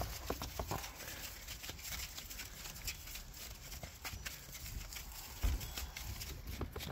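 A flock of sheep being let out through a gate, their many small hooves tapping in quick, uneven succession as they move.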